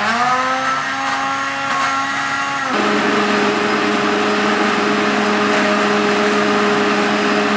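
Countertop blender running, blending avocado, banana and ice cubes into a smooth drink. About three seconds in, its steady hum drops a step in pitch and turns rougher.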